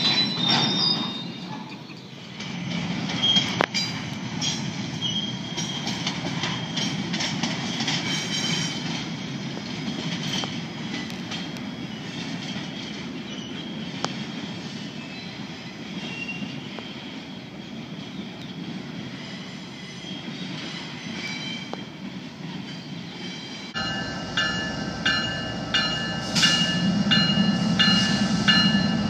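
Double-stack intermodal freight cars rolling past, wheels squealing with scattered clicks over the rail joints. About 24 s in, this gives way to an approaching CSX diesel locomotive: its engine rumble grows louder, joined by repeated high ringing tones.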